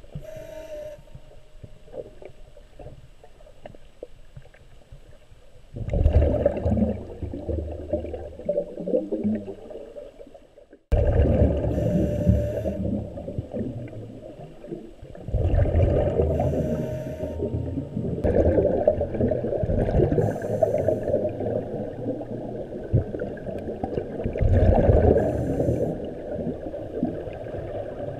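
Muffled underwater noise picked up inside a GoPro's waterproof housing: water churning and bubbling, suddenly louder about six seconds in, with hissy bursts of bubbles recurring roughly every four seconds.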